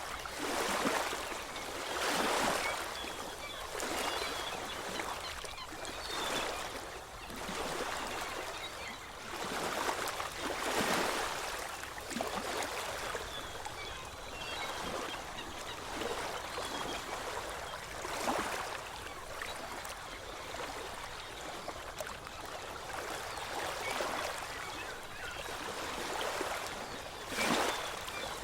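Ocean waves on a shore: a continuous wash of surf that swells every few seconds as each wave breaks and runs out.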